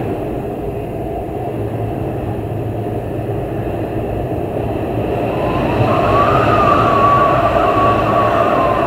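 Heavy storm wind blowing hard, a dense rush of noise. About two-thirds of the way through it swells and a whistling tone comes in, holds, then fades near the end.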